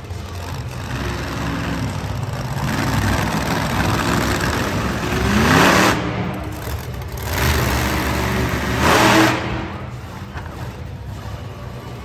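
Monster truck engine revving hard in repeated bursts: the pitch climbs and the sound swells near six seconds in, again about a second and a half later, and again near nine seconds, then drops back to a lower drone.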